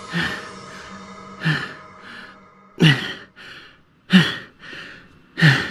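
A young man's voice giving short breathy exclamations, about one a second, each dropping in pitch and followed by a softer breath. Soft background music runs underneath and stops about three seconds in.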